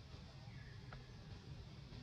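Faint outdoor background: a steady low rumble, with a faint short chirp about half a second in and one soft click near the middle.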